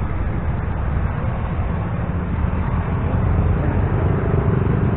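Steady low rumble of a train approaching a railway level crossing.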